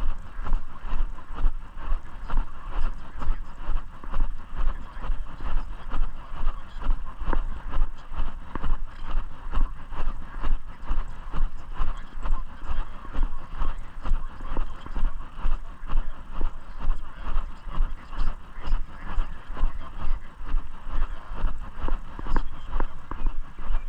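Steady walking footsteps, about two steps a second, each with a low thud, over a constant rustling hiss from the jostled microphone.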